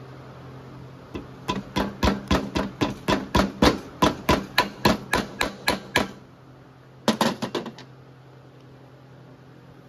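Hammer blows driving the new rear axle seal into a Honda Rancher's axle housing: a steady run of sharp strikes, about four a second, for nearly five seconds. After a short pause comes a brief, quicker burst of taps.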